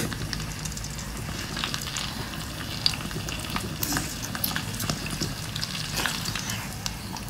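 Close-miked mukbang eating sounds: wet sticky clicks, smacks and slurps as cooked octopus tentacles are pulled apart, sucked and chewed, over a steady crackly hiss.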